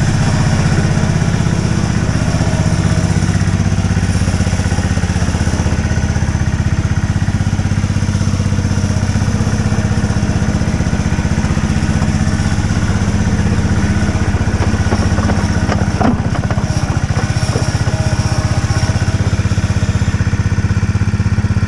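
Small engine of a ride-on miniature diesel locomotive running steadily at a low, even speed. There is a brief squeak about sixteen seconds in.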